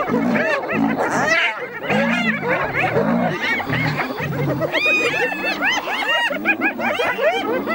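A pack of spotted hyenas giggling and cackling in a dense chorus of overlapping rising-and-falling calls, the excited giggling of hyenas mobbing a lion. Deep growls repeat underneath.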